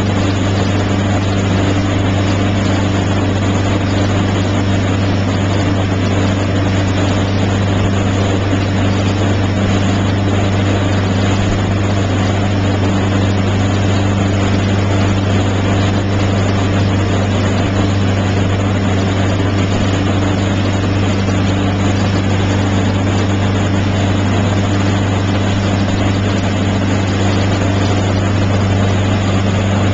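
Motorboat engine running steadily at towing speed, a constant low drone, over a steady rush of wake water and wind.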